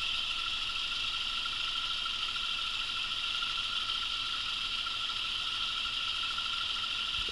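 1920s IXL lathe running on its small single-phase motor: a steady, even whine over a constant hiss.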